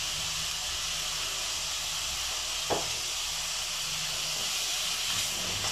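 Ground pork sizzling in a nonstick pan with no oil added, cooking in its own fat, a steady even hiss.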